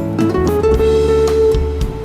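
Bossa nova music: plucked acoustic guitar over bass, with a light steady beat of percussion ticks.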